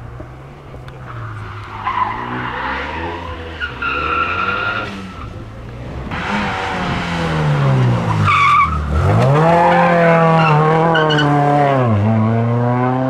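Rally car driven hard through a corner: the engine revs rise and fall, and the tyres squeal briefly twice. From about 9 seconds in it gets louder, the revs dipping and climbing again twice as it accelerates.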